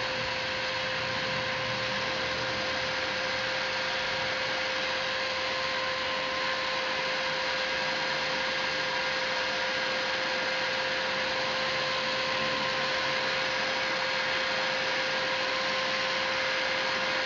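Electric heat gun running steadily, blowing hot air onto a PVC pipe to soften it: the rush of air with a steady motor whine.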